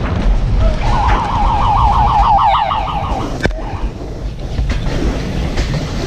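Alpine coaster bobsled running fast on its tubular steel rails: a steady low rumble with wind on the microphone. For about two seconds near the start, a high wavering tone warbles about eight times a second, and a sharp click comes about halfway through.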